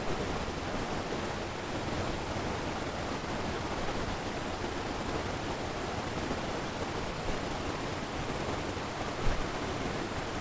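Fast-flowing stream rapids rushing steadily, with a single brief thump about nine seconds in.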